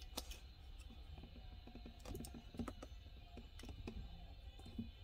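Faint, irregular small clicks and taps of fingers handling a small diecast model Datsun 280Z, turning it over in the hand.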